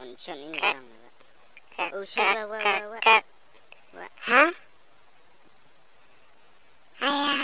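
Steady, high-pitched cricket chirring runs through as background ambience. Over it come a few short, wordless vocal exclamations from the cartoon characters, including a rising cry about four seconds in.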